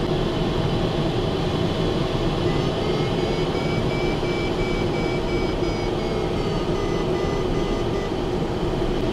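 Steady rush of air over a glider's canopy in flight, heard inside the cockpit. A faint high tone rises in pitch about three seconds in, holds, and drops away again around seven seconds in.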